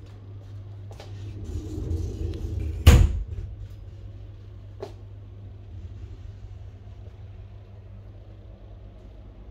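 Wardrobe door rumbling open and stopping with one loud knock about three seconds in, over a steady low hum.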